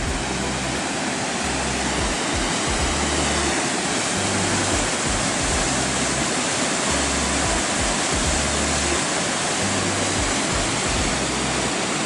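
Whitewater of the Petrohué River rapids rushing through a narrow rock gorge: a steady, even rush of water. Background music with low bass notes plays underneath.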